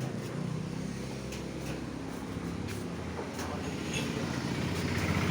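A road vehicle's engine running with a steady low hum that grows louder near the end, with a few faint light clicks.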